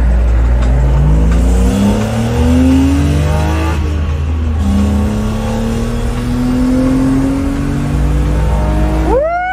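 BMW E34's engine heard from inside the cabin, accelerating hard with the revs climbing, dropping at a gear change about four seconds in, then climbing again through the next gear.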